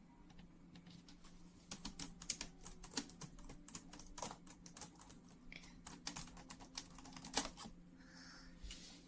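A rapid, irregular run of light clicks or taps, like typing, starting about two seconds in and lasting about six seconds, over a faint steady hum.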